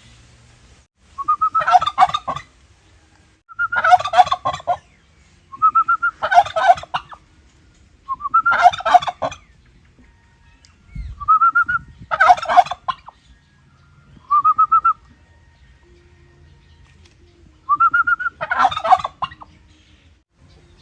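Domestic male turkeys gobbling: six loud rattling gobbles about every two seconds, with a longer pause in the middle. Each gobble is set off by a short rising whistle-like note, and one of those notes, near the two-thirds mark, is heard on its own with no gobble after it.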